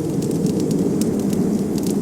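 Wood fire crackling with frequent small sharp pops and snaps, several a second, over a steady low rush of blizzard wind.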